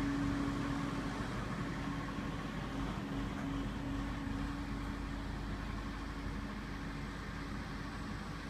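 Crawler crane's engine running steadily, a low hum with a constant tone that eases slightly a few seconds in.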